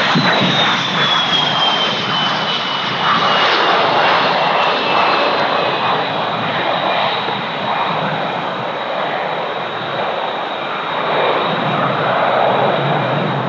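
Panavia Tornado IDS jet, its twin RB199 turbofan engines giving loud jet noise as it passes, with a high whine that falls in pitch over the first few seconds and then holds steady.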